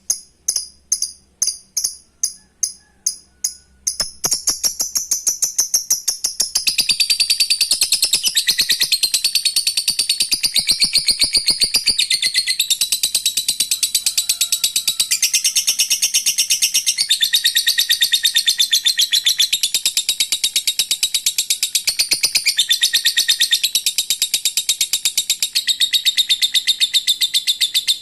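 Lovebird giving its long 'ngekek' call: a few separate sharp chirps, then from about four seconds in a very fast, unbroken chatter of high-pitched notes that runs on for over twenty seconds.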